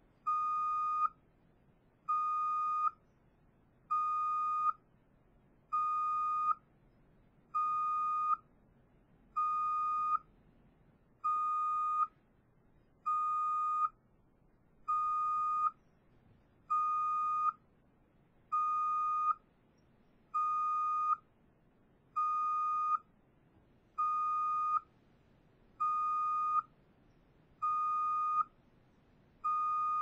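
Truck reverse (backup) alarm beeping while the truck backs up: the same steady single-pitched beep, a bit under a second long, repeating evenly about every two seconds.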